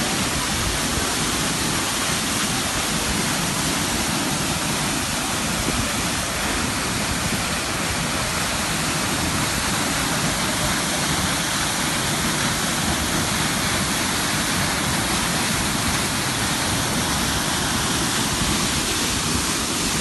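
Waterfall pouring down a rock face onto rocks and a shallow pool: a steady rush of falling water.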